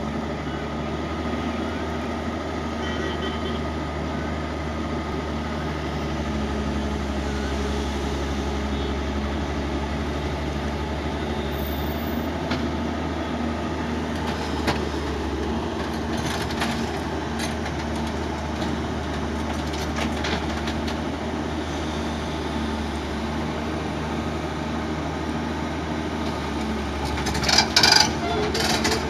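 An L&T-Komatsu crawler excavator's diesel engine runs steadily while the boom and bucket are worked. There are a few brief knocks along the way and a louder burst of clatter near the end.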